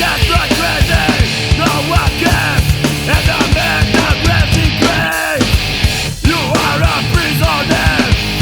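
Loud punk or heavy-metal rock music with fast drums and distorted guitar, with a short break about five seconds in.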